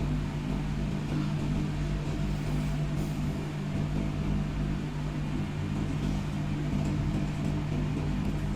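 A steady machine hum: one low, even tone with a hiss over it, unchanging throughout.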